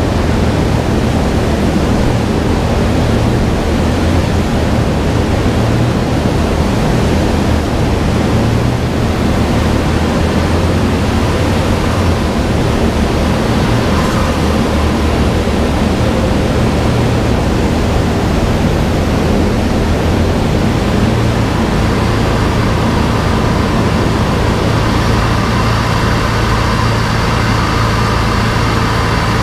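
Steady loud rush of the dyno's large cooling fan and the car turning the rollers, with the low hum of the Twingo's turbocharged Renault F4R four-cylinder held at a steady speed underneath. The engine's pitch steps slightly a couple of times, and a few higher tones join near the end.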